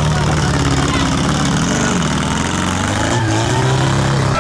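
Tractor engine running, its note dipping about halfway through and then climbing back up as it is revved.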